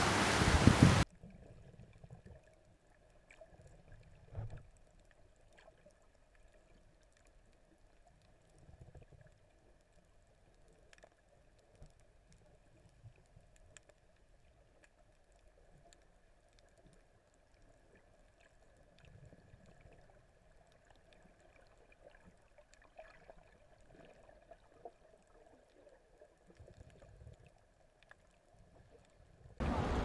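A loud hiss cuts off abruptly about a second in. Then comes faint underwater sound picked up through an action camera's waterproof housing while snorkeling over a coral reef: muffled low thumps of moving water and scattered faint clicks over a faint steady hum.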